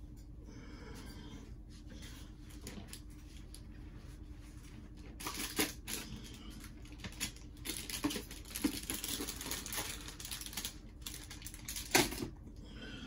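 Cardboard wargame chits being stirred and drawn from a draw container: a dense clicking rattle that starts about five seconds in, with one sharper clack near the end.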